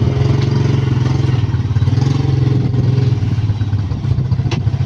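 Motorcycle engine running steadily at an even, low engine note.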